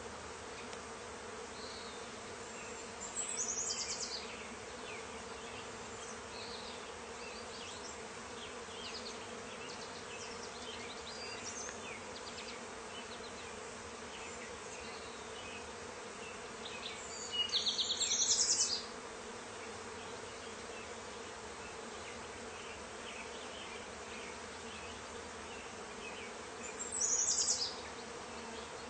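Honey bee swarm clustered on and entering a swarm-trap box, making a steady massed buzzing hum with a clear low tone. Three brief, louder, high-pitched trills cut in about three seconds in, midway, and near the end.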